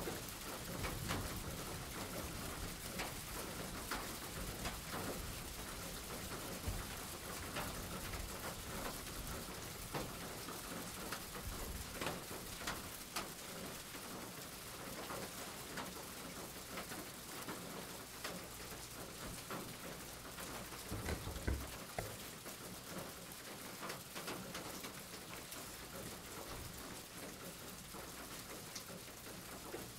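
Steady rain falling, with scattered sharp drips and a soft low thump a little over twenty seconds in.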